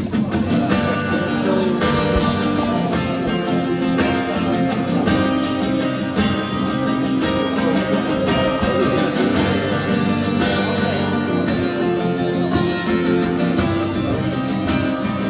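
Acoustic guitar strummed live through a PA: steady chords opening a song.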